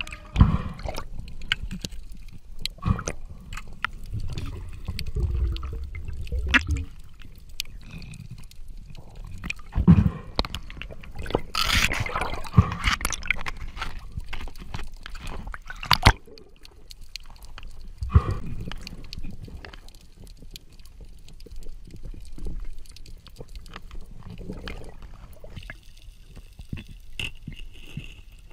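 Underwater sound picked up by a spearfisher's camera: water movement and gurgling with many scattered clicks and knocks, and a longer, louder rush of noise about twelve seconds in. A faint steady high tone comes in near the end.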